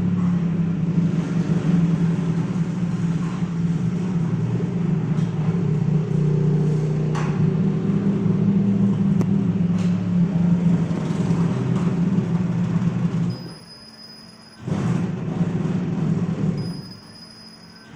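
Steady low machine hum from a CO2 laser marking machine running with its automatic feeder and conveyor. The hum drops away twice near the end, leaving a faint high whine.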